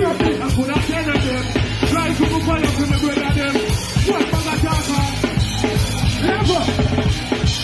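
Live band music with a drum kit keeping a steady beat under a singing voice, loud throughout.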